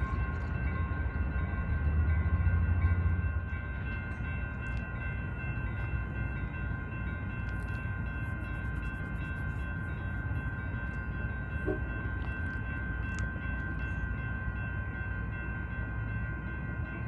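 Distant ACE commuter train with its SC-44 diesel locomotive running. A low rumble is loudest for the first three and a half seconds, then eases to a steady lower level, over a steady whine made of several even tones.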